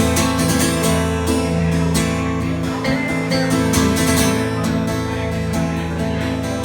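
Live band playing the instrumental opening of a song, led by a strummed acoustic guitar in a steady rhythm.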